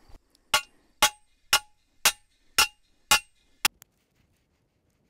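Steel T-post being driven into the ground with a T-post driver: seven metallic clanks about half a second apart, each ringing briefly, the last one lighter.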